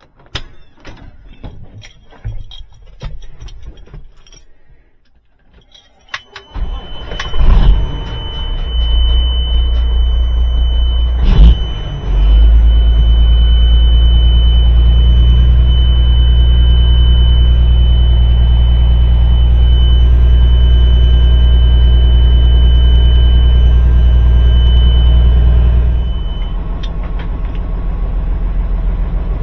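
Rattling and clicking at first, then a semi truck's diesel engine cranks and starts about six seconds in. It runs loud and steady with a steady high-pitched tone over it, then drops to a quieter, lower run near the end.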